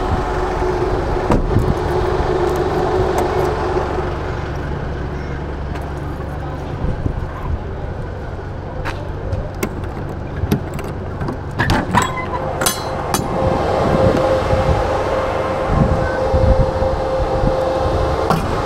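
A delivery truck's engine runs with a steady hum. A few sharp metallic clicks and clanks come about two-thirds of the way through.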